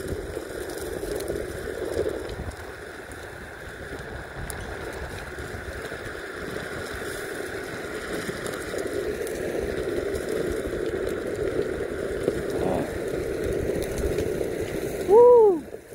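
Meepo Mini 2 electric skateboard on Cloud Wheels rolling along a dirt trail, a steady rumbling ride noise. Near the end comes a short, loud call that rises and falls in pitch.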